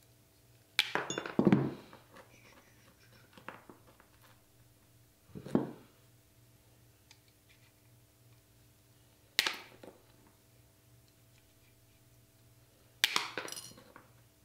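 Tile nippers snapping pieces off ceramic wall tile: four sharp cracks a few seconds apart, the first and last followed by a brief rattle.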